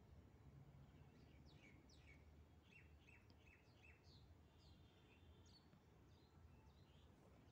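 Near silence with faint birds chirping: a run of short, quick falling chirps starting about a second in, over a low background rumble.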